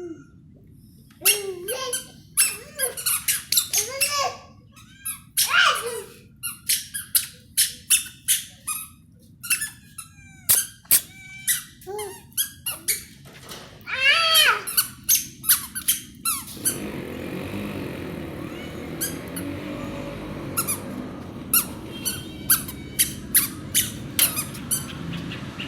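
Cat, most likely a kitten, giving many short, high squeaky mews in quick succession for about the first fifteen seconds. After that a steady hiss with scattered clicks takes over.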